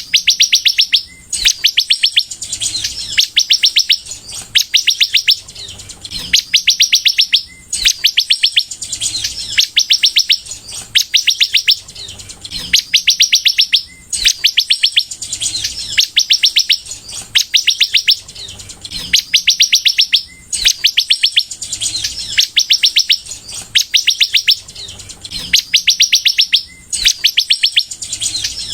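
A sunbird (kolibri) singing in full song. It repeats phrases of very rapid, high notes, a fast trill about a second and a half long, with a new phrase roughly every two seconds.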